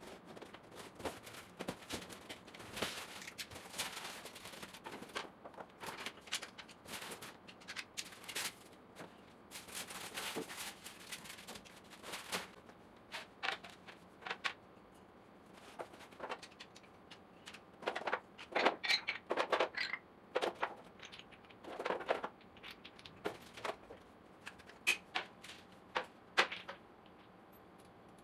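Flat-pack furniture being unboxed by hand: cardboard and packing scrape and rustle with many small clicks for the first dozen seconds or so. Then wooden rails and boards knock and clatter on a tiled floor as they are laid out, in separate sharp knocks.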